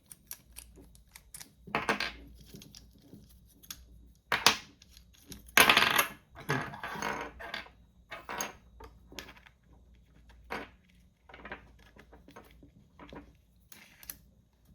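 Clicks, clinks and scrapes of GoPro mount parts being unscrewed, handled and fitted together, with the loudest knocks about four and a half and six seconds in.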